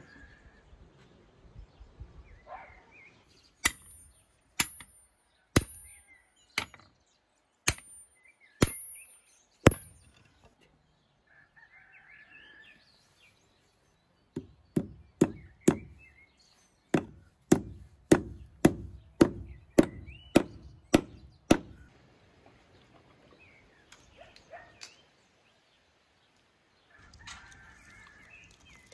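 Two runs of sharp strikes. The first is about seven blows roughly a second apart, each with a brief high metallic ring. After a pause comes a faster run of about fourteen duller blows, two a second.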